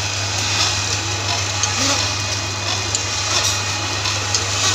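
Cookie-making machine running: a steady low hum under a continuous hiss with small, irregular clicks.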